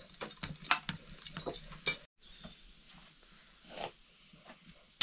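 Kitchen utensils clicking and clinking against cookware in quick, irregular strokes, stopping abruptly about two seconds in; only faint sounds follow.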